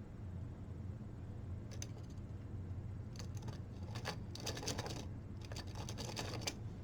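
Small plastic clicks and rattles as 3D-printed track links are handled and pinned together with a paper-clip wire, coming in clusters after the first couple of seconds, over a low steady hum.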